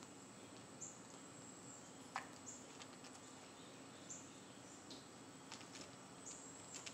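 Near silence: faint background with a steady high-pitched whine, a few short faint chirps and some small clicks.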